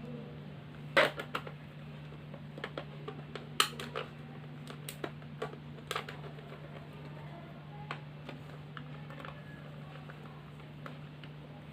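Scattered sharp clicks and light knocks of plastic and small parts as the Lenovo G480 laptop's memory cover is put back and fastened, over a steady low hum.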